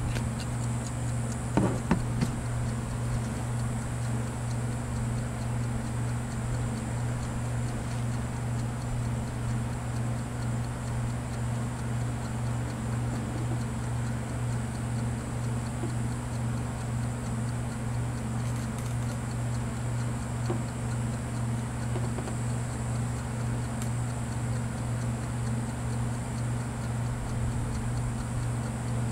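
Steady low hum, like a motor or electrical hum, pulsing evenly, with a few sharp clicks a little under two seconds in.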